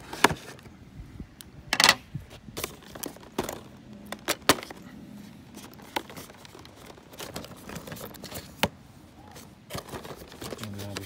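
Hands handling and opening a thin cardboard product box: irregular clicks, taps and rustles of the flaps and card, the loudest a short scrape about two seconds in.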